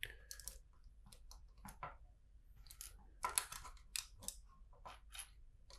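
LEGO bricks clicking as pieces are handled and pressed together, a scatter of faint, short clicks with a busier run about three to four and a half seconds in.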